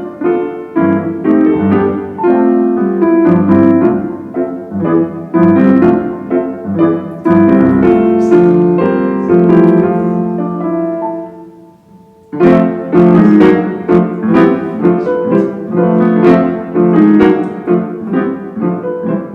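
Solo piano music, many notes struck in quick succession. The playing dies away about twelve seconds in, then starts again loudly a moment later.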